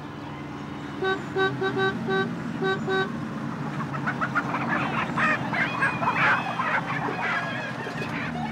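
A vintage Bedford OB coach's horn sounding a string of short toots about a second in, over the coach's engine running. From about halfway on, a hubbub of many voices rises over the engine.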